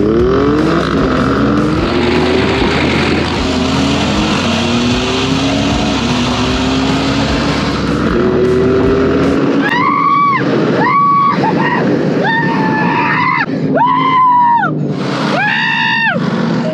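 Turbocharged SUV engine at full throttle in a drag run, heard from inside the cabin: its pitch climbs and drops back at each upshift. From about nine seconds in the engine rumble gives way to a run of short repeated high tones, about one a second.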